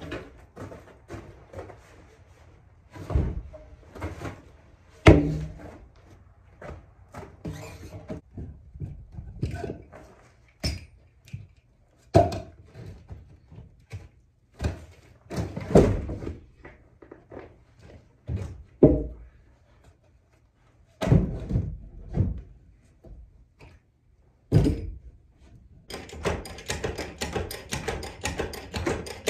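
A heavy 6x6 pressure-treated timber being manhandled into place as a barn wall sill, knocking and thudding against the ground and the wall framing in irregular heavy thumps. Near the end comes a fast run of small clicking and rattling.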